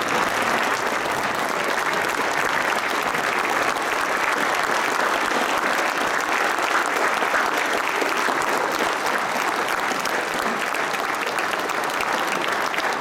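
Large audience applauding steadily in a standing ovation, many hands clapping at once.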